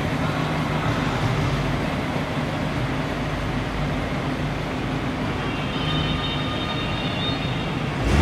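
BMW E39 M5's 4.9-litre V8 idling steadily.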